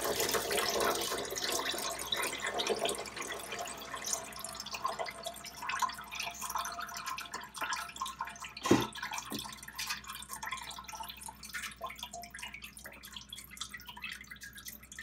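Chicken broth poured from a stainless steel stockpot through a fine-mesh strainer and cheesecloth into a pot: a steady splashing pour that thins to dribbles and drips. A single sharp knock comes about nine seconds in.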